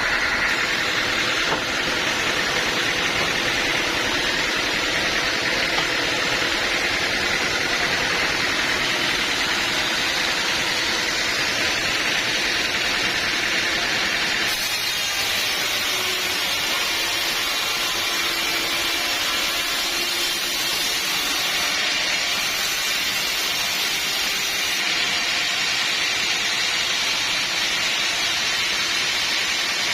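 Sawmill saw and machinery running steadily with a loud, even hissing whine; the sound changes abruptly about halfway through.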